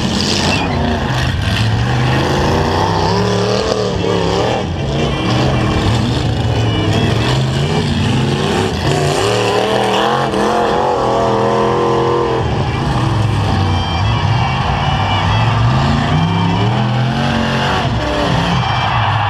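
Several demolition-derby pickup trucks' engines revving hard, their pitch rising and falling again and again, with a few dull knocks of impact among them.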